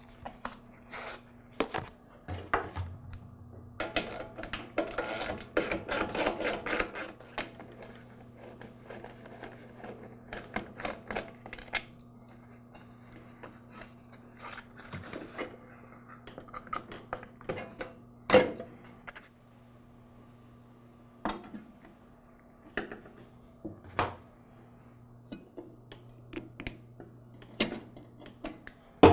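Plastic air-cleaner parts of a Honda lawn mower being taken off by hand: scattered clicks, rattles and scrapes of the cover, filter and housing, busiest about four to seven seconds in, with one sharp knock a little past halfway. Near the end come small clicks of pliers at the fuel line.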